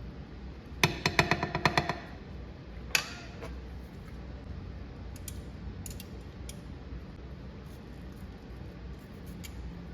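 Cooking utensil clattering against a frying pan while food is moved around in it: a quick run of ringing clicks about a second in, one louder clink near three seconds, then a few faint ticks.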